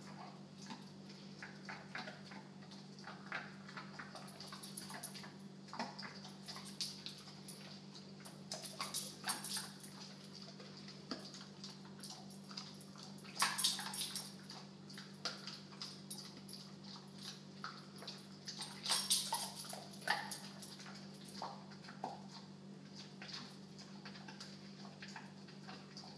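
American bulldog chewing and gnawing a twirly bully stick on a tile floor: irregular wet crunches and clicks, with louder bouts of chewing about 13 and 19 seconds in.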